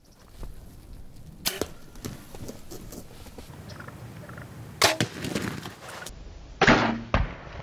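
A series of sudden sharp thwacks of bows shooting and arrows striking wild turkeys: about a second and a half in, about five seconds in, and twice near the end. Turkeys flap and rustle in between.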